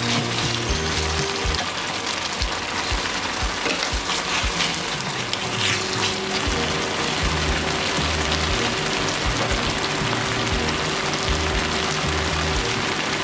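Chicken stew in tomato sauce simmering in a frying pan, bubbling and sizzling steadily as a wooden spatula stirs it, with background music playing.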